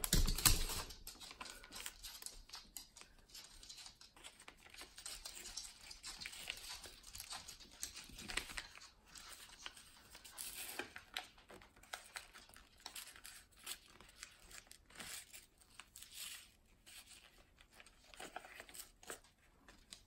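A sheet of paper being folded and creased by hand into a paper airplane: repeated crinkling and rustling with short scraping creases. A louder bump and rustle in the first second.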